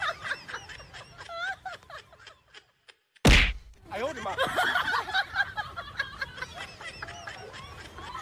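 A busy edited-in soundtrack of short, high, wavering chirps breaks off into near silence. About three seconds in comes one sudden loud whack sound effect, and the chirping resumes after it.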